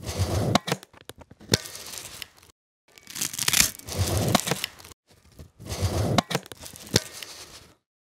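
Nylon webbing strap of a pelvic sling pulled through its plastic AutoStop buckle in three pulls, a rasping slide with a sharp click in each pull, the loudest clicks about a second and a half in, near the middle and near the end. The clicks are the buckle's prongs engaging, the sign that the sling has reached its set compression.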